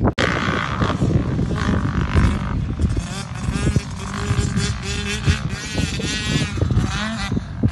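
Motocross dirt bike engines revving on the track, the pitch rising and falling over and over as the riders open and close the throttle.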